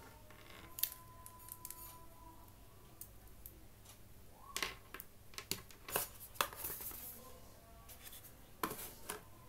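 Hands handling in-ear earphones and their cardboard box: scattered small clicks, taps and rustles, with a cluster of sharper clicks in the second half.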